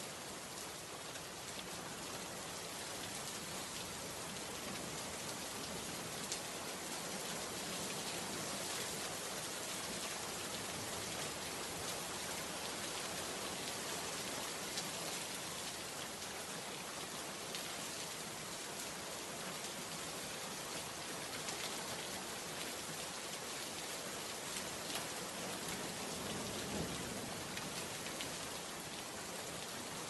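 Steady rain falling: an even hiss with faint scattered ticks of drops.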